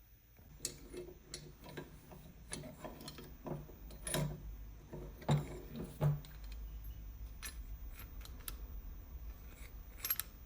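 Irregular light clicks and taps with some rubbing, from small metal parts being handled; a few louder knocks come in the middle.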